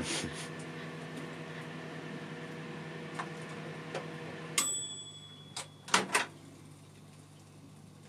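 Old microwave oven running with a steady hum and a couple of small pops; about halfway through its timer rings a short ding and the hum drops away, then a few sharp clacks as the door latch is released and the door opened.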